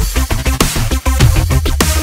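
Electronic music with a heavy bass, a steady driving beat and repeated falling swoops in pitch.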